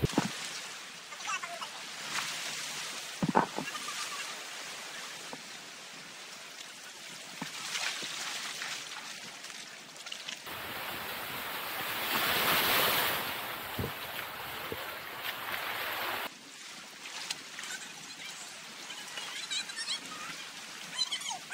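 Sea surf washing against and around coral rocks at the shoreline, a steady rushing hiss with wind on the microphone. It changes abruptly in places and swells louder for a couple of seconds about halfway through.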